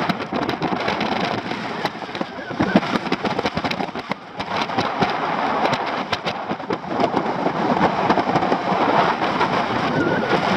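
Airflow over the microphone in paraglider flight: a steady rush of wind, uneven in strength, with frequent crackling buffets.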